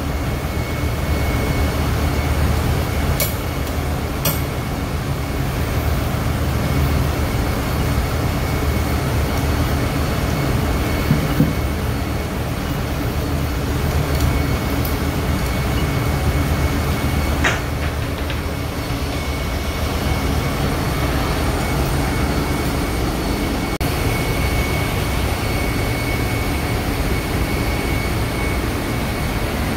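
Oxy-acetylene torch flame running steadily while heating the shaft end of an electric motor rotor, a continuous hiss over a constant low machinery rumble with a faint steady high whine.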